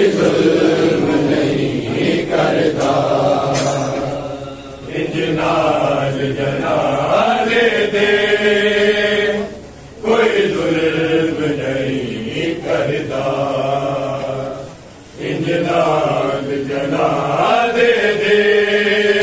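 Men chanting a noha, a Shia mourning lament for Imam Hassan, in long sung phrases with short breaks about five, ten and fifteen seconds in.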